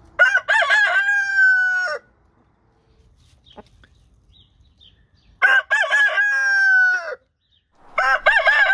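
Roosters crowing, three crows one after another: each is a few short broken notes followed by one long held note that drops at the end. A long pause comes after the first crow, and the third starts near the end.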